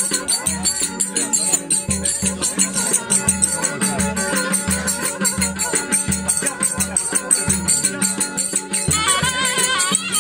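Davul-and-zurna folk dance music: the davul keeps a steady rhythm of deep bass strokes with fast, crisp clicking strokes packed between them. A reedy, wavering zurna melody comes through more strongly near the end.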